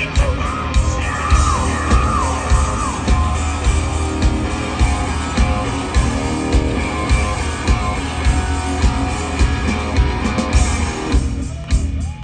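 A live hard rock band playing loud, with distorted electric guitars over drums and bass, and voices yelling over the music. Guitar bends sound near the start.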